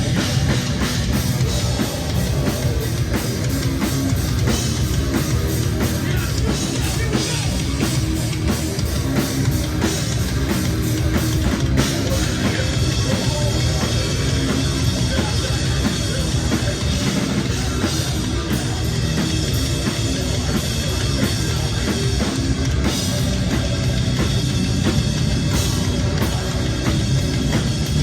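A heavy rock band playing live, loud and without a break: drum kit and guitars.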